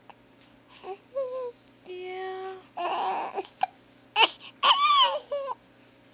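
Whimpering cries broken by hiccups: short pitched whines and moans at first, then sharp sudden hiccups about four seconds in, each running into a louder falling cry.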